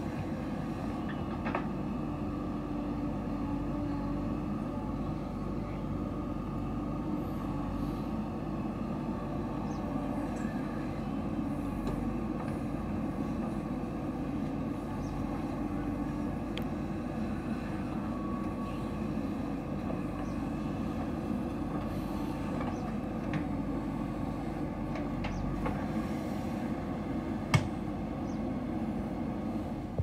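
JCB 3DX backhoe loader's diesel engine running steadily as the backhoe arm loads soil into a tipper truck. Near the end, a single sharp knock.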